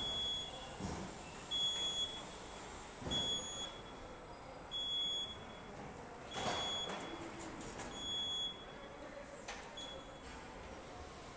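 A warning beeper on a factory assembly line gives a short, high beep about every second and a half, seven times in all. Under it runs steady machinery noise with a few clunks, the loudest about six and a half seconds in.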